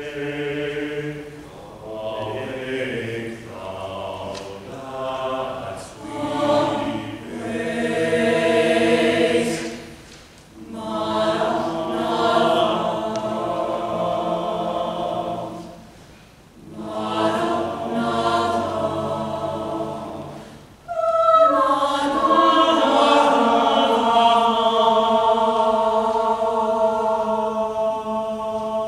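Mixed chamber choir singing unaccompanied in short phrases with brief breaks between them. About two-thirds of the way through, the choir comes in suddenly on a louder, long-held chord.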